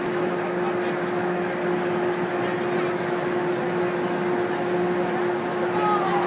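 Vertical wind tunnel of an indoor skydiving centre running at flying speed: a steady rush of air with a constant fan hum.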